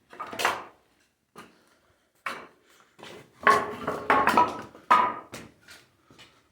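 Irregular knocks and clattering, about ten sharp hits, the loudest bunched in the middle and some with a short metallic ring.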